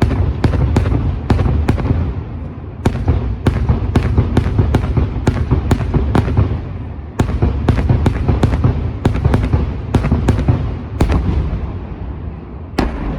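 Daytime fireworks: a fast run of sharp, loud bangs at about two a second over a continuous low rumble of reports, with a brief break about seven seconds in.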